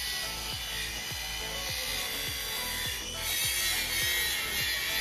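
Background music with a steady, regular beat over a steady high-pitched whirring hiss from a power tool, which grows louder about three seconds in.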